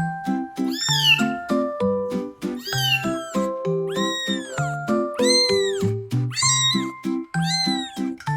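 Kitten meowing again and again, about six high meows that each rise and fall in pitch, roughly one a second, over background music with a regular bouncy bass line.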